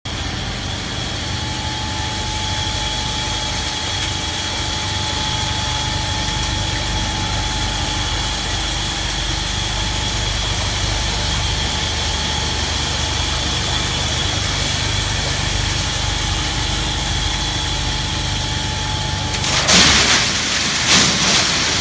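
Plate ice machine running: a steady mechanical hum with a high steady whine over it. Near the end come two short, loud rushing bursts.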